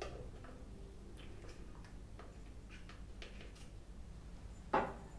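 Small plastic clicks and taps from handling an essential-oil diffuser and its oil bottle, with one louder click near the end.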